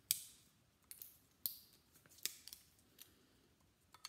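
Pliers snipping and prying at a small transformer's spool, taking the top off to free the copper winding: several sharp snips and clicks about a second apart.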